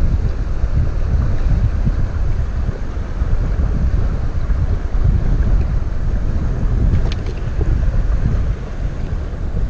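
Wind buffeting the microphone in a steady, loud low rumble, over the rush of a shallow river running over stones.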